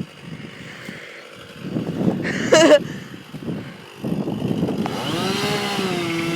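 Chainsaw engine revving up to full speed about four seconds in and running steadily at high revs while cutting into a tree. Just before, a brief loud wavering high-pitched sound stands out.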